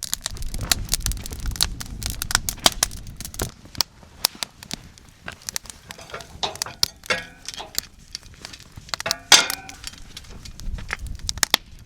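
Campfire cooking: a steady run of sharp crackles and clicks with several short ringing metal clinks of cooking gear, the loudest about nine seconds in, over a low rumble in the first few seconds.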